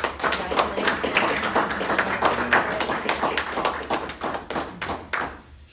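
Audience applauding, a dense patter of many hands clapping that dies away a little over five seconds in.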